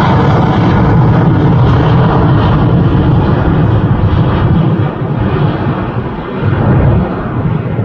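Jet engines of an Airbus A320-family airliner climbing away overhead: a loud, steady low rumble with a rushing roar on top. The level drops a little about five seconds in.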